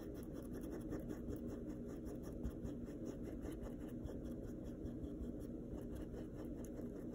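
Flat paintbrush scratching across a canvas in quick, short back-and-forth strokes, a soft, dry brushing sound.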